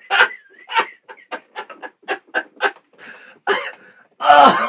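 A man laughing in a run of short breathy bursts, about three to four a second, ending in a louder, longer voiced laugh near the end.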